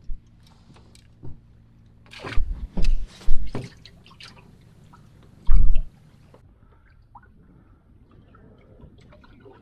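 Water splashing and knocking around a small fishing boat: a quick run of sharp splashes about two to four seconds in, and one more, the loudest, just after five seconds, then faint lapping water.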